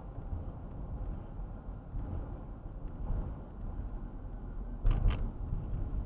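Car driving, heard from inside the cabin: a steady low road and engine rumble, with two quick thumps close together about five seconds in.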